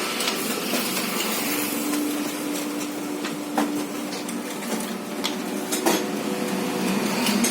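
Fuji Xerox copier-printer running with a steady mechanical hiss and scattered sharp clicks, and a low hum for a few seconds starting about a second and a half in.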